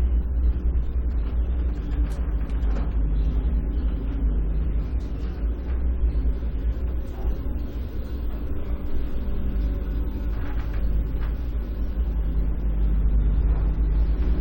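Elevator car in motion: a steady low rumble with a faint hum over it, and a few faint clicks along the way.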